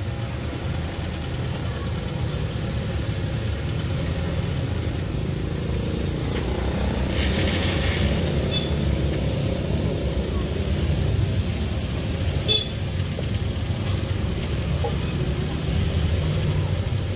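A motor vehicle engine running steadily with a low rumble, with a brief hiss about seven seconds in and a sharp click a few seconds later.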